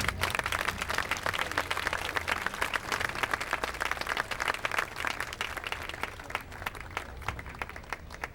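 Crowd applauding, a dense patter of many hands clapping that thins to scattered single claps near the end.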